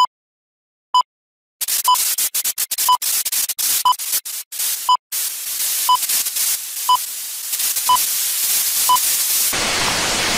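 Film countdown leader: a short high beep once a second, ten in all. From about a second and a half in, old-film crackle and clicking hiss run under the beeps, turning into a steady hiss near the end.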